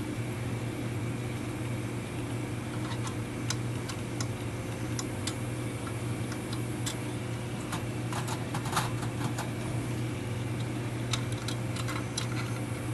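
Light, irregular clicks and taps of brass clock wheels and arbors being handled and set into a brass movement plate, over a steady low hum.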